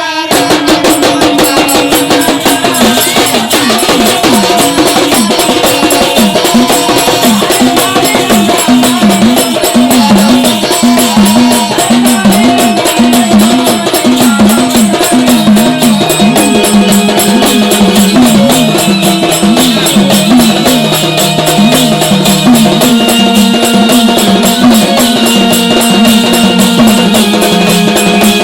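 Instrumental interlude of a Marathi devotional folk (jagaran/gondhal) ensemble: fast, dense hand-drum and percussion playing under a melody line that trills rapidly up and down, with a lower held note joining about halfway.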